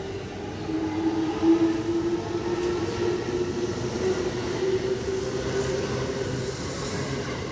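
Electric commuter train moving through the station, its motors whining at a steady pitch over the rumble of the wheels on the rails.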